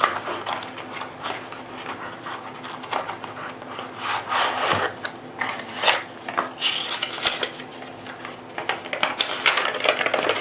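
Knife packaging being opened and handled by hand: irregular rubbing and scraping with many small clicks and knocks.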